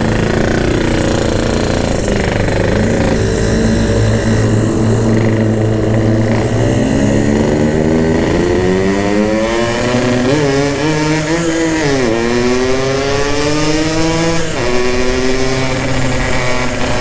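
Yamaha RX-King's 135 cc two-stroke single-cylinder engine pulling under throttle while riding. Its pitch climbs, drops sharply about twelve seconds in and climbs again, then drops once more near the end, as with gear changes.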